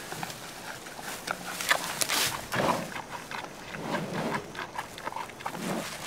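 Giant panda chewing bamboo: irregular crunching and snapping, with the leaves rustling.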